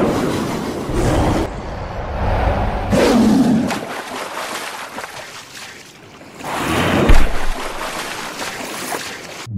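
Animation sound effects of a giant monster battle: a series of heavy, noisy crashes and splashes as huge bodies plunge into water, with low rumbling between. The loudest crash comes about seven seconds in.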